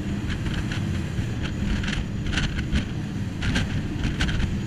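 Jetboat riding the river rapids: a steady low engine drone, with repeated short rushes of water noise and wind on the microphone.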